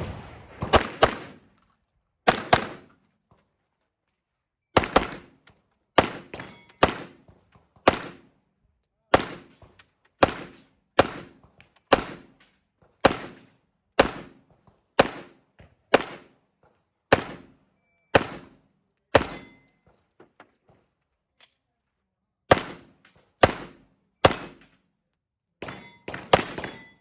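Glock 34 9mm pistol firing single shots, about one a second, with a pair of quick shots near the start. Near the end there is a pause of about three seconds, then a few more shots closing with a fast string of three.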